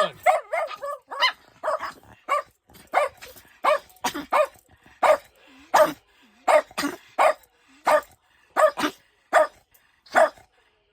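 A dog barking over and over in short, sharp barks, about two a second.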